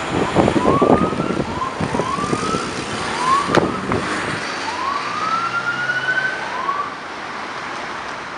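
Emergency vehicle siren sounding in a string of short rising sweeps, with one longer sweep around the middle, fading out near the end. Footstep thumps can be heard in the first half.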